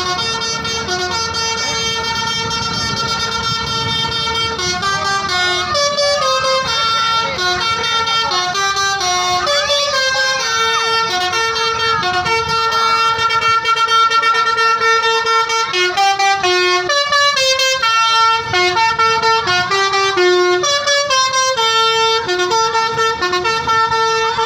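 Tour bus telolet horn, a set of tuned air horns, playing a melody: loud steady notes that step up and down in pitch, several tones sounding together, with no break.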